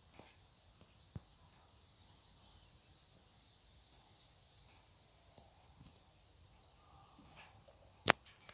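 Quiet garden ambience with a few faint high chirps, and no crowing. Small clicks near the start and a single sharp click near the end.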